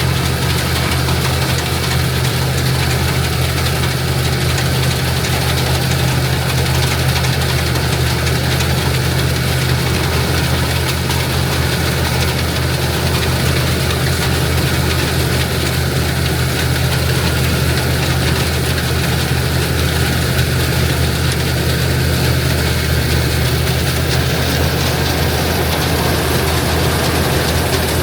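International Harvester tractor engine running at a steady speed, driving an IH 82 pull-type combine through its PTO, with the combine's machinery running along with it.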